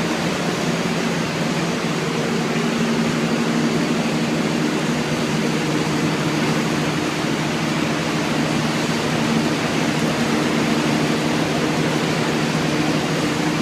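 Steady machine noise: an even hiss over a low hum, unchanging throughout.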